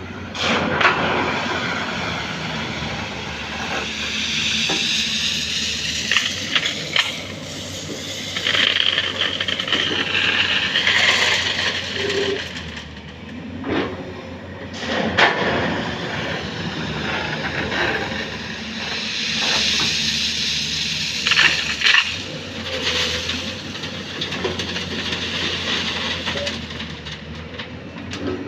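Hyundai 210 excavator running steadily under load while loading a tipper. Earth and rock clatter and pour into the truck's steel body in two long rushes, with sharp knocks of stone on steel in between.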